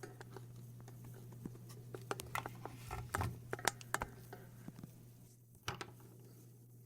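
Faint scattered clicks and taps from handling a power-supply circuit board and test probes, mostly from about a second and a half to four and a half seconds in, with one more near the end, over a steady low hum.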